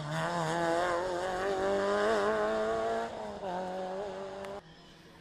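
Rally car engine working hard, its note wavering up and down with the throttle as the car comes past. It drops away abruptly near the end.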